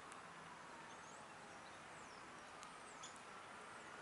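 Near silence: faint outdoor ambience, with a few brief, faint, high bird chirps.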